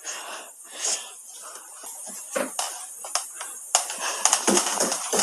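Hard objects being handled: scattered clicks and knocks that build into a quick run of rattling and clattering in the second half.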